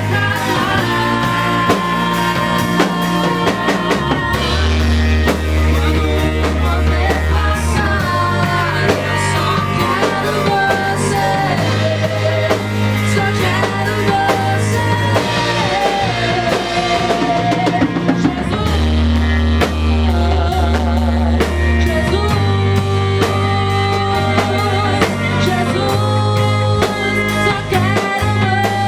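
Live gospel worship band playing with singing, drum kit, bass and guitar.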